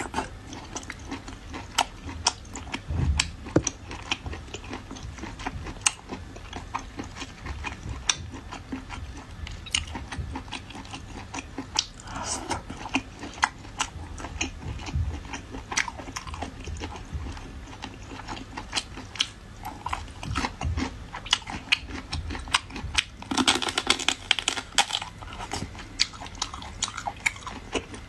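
Close-miked wet eating sounds: marinated shellfish being chewed and sucked from the shell, with many sharp lip-smacking and shell clicks throughout and denser sucking stretches about halfway through and near the end.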